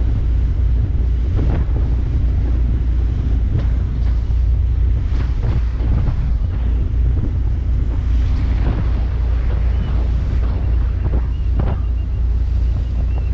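Wind buffeting the microphone on a boat running through rough seas, over the steady low rumble of the boat under way, with short bursts of water and wind noise.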